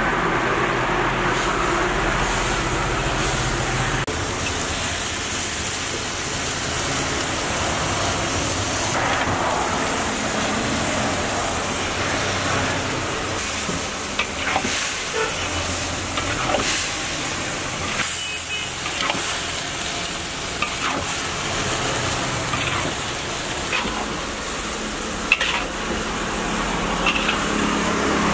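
Fried chicken pieces sizzling in a hot wok of sauce as a metal ladle stirs and tosses them, with scattered clanks and scrapes of the ladle against the wok.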